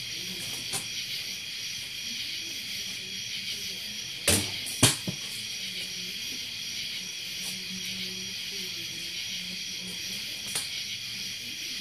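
Two sharp cap pistol cracks about half a second apart, over a steady high hiss.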